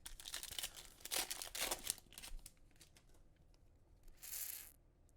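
Foil trading-card pack wrapper being torn open and crinkled for about two seconds, followed by a brief swish about four seconds in.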